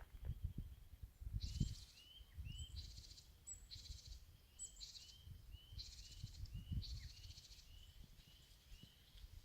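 A small songbird singing the same short phrase over and over, about once a second: a high thin note into a buzzy trill, with small slurred chirps between. A low rumble of handling or wind on the microphone runs underneath.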